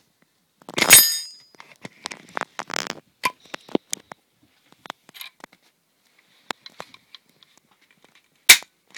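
Metallic clatter of a deactivated No. 4 Mk 2 Lee-Enfield rifle's bolt and receiver being worked. A loud ringing clank comes about a second in, then a run of smaller clicks and knocks, scattered ticks, and one sharp click near the end.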